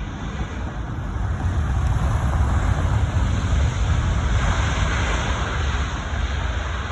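Jet airliner's engines rumbling as it passes, growing louder over the first couple of seconds and holding steady before easing slightly near the end.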